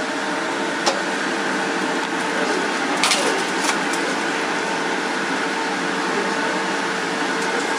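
A steady mechanical whir with a constant hum tone, broken by two light clicks about one and three seconds in.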